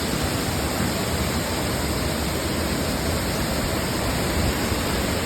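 Waterfall, its water falling and rushing steadily.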